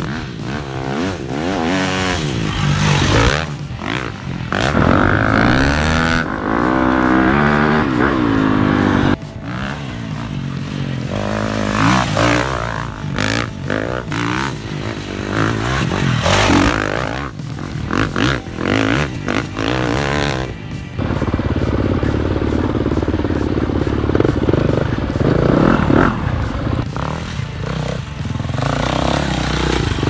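Husqvarna FE 366 dirt bike's four-stroke single-cylinder engine revving up and down as it is ridden off-road, in a string of short clips that cut abruptly from one to the next.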